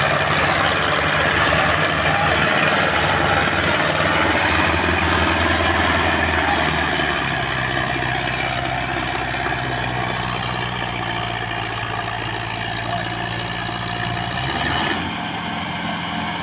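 Sonalika DI 750 III tractor's diesel engine running steadily while pulling a straw-laden trolley. Its note drops about halfway through and shifts again near the end.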